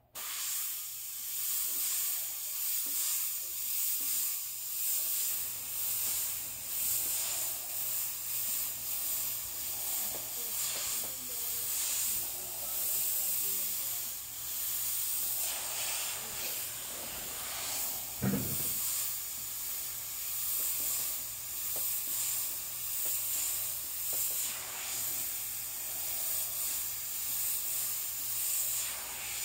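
Airbrush hissing as it sprays paint, the hiss swelling and easing as the trigger is worked. A brief low thump about eighteen seconds in.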